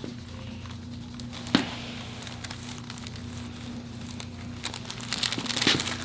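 Rustling and crinkling of bodies and coverings shifting on a chiropractic treatment table, with one sharp click about a second and a half in and a burst of crackly rustling near the end, over a steady low hum.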